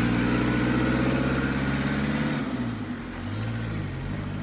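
Tofaş Doğan SLX's four-cylinder engine running at steady revs as the car drives along, then about halfway through the engine note dropping, rising and dropping again as the car slows and manoeuvres at low speed.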